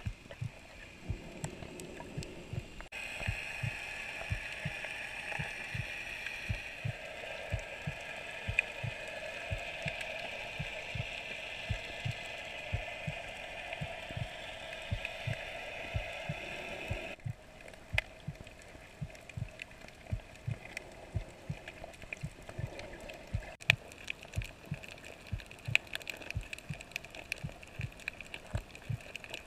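Muffled underwater sound heard through a camera's waterproof housing: a steady hiss of moving water with irregular low thumps and clicks, a few a second. The hiss grows louder about three seconds in and drops back quieter a little past halfway.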